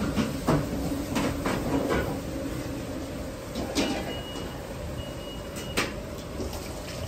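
Battered chicken pieces deep-frying in a wok of hot oil over a commercial gas wok burner: a steady low rush with frying noise. Several sharp metal knocks and clinks come through it, and a thin high tone sounds briefly twice past the middle.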